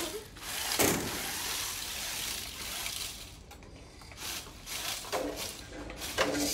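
Small competition robot driving across foam floor tiles: a steady whirring hiss from its drive motors and wheels, with one sharp knock about a second in.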